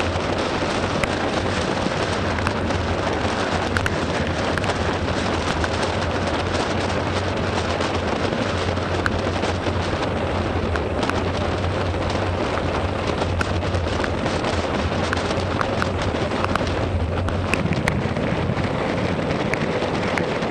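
Steady rush of wind buffeting the camera microphone and rain on a fast bicycle descent in pouring rain, with frequent small ticks of raindrops striking the camera.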